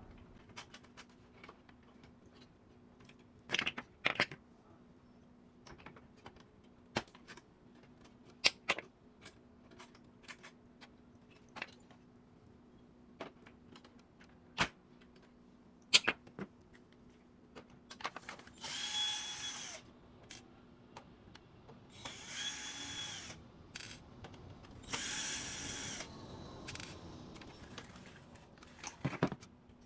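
Electric screwdriver running in three short bursts of a second or so each, with a steady whine, removing screws from the HP LaserJet Pro M402dn printer's casing. Scattered sharp clicks and knocks of plastic parts and screws being handled come between the bursts.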